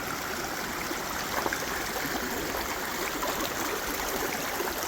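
A mountain creek flowing steadily: a constant rush of running water.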